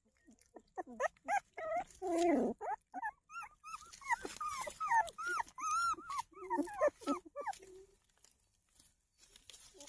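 Newborn puppies whimpering and squealing in many short, high cries that rise and fall, with a longer falling whine about two seconds in. The cries die away near the end.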